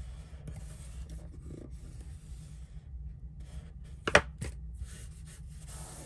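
Hands pressing and rubbing a freshly glued flap of cardstock flat, paper rustling against paper, with a sharp tap about four seconds in.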